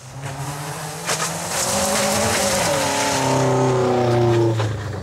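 Fiat Seicento rally car accelerating hard past on a loose gravel stage, its engine revving high over a hiss of gravel and tyre noise. The engine is loudest about four seconds in, then falls away suddenly just before the end.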